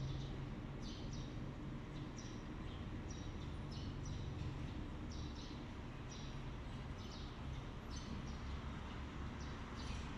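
Milking parlor equipment humming steadily, low and even, with irregular short high chirps repeating every half second to a second over it.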